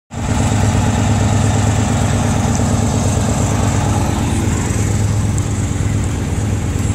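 Straight-piped Detroit Diesel 8V92TA, a two-stroke diesel V8, running steadily at a low, even speed.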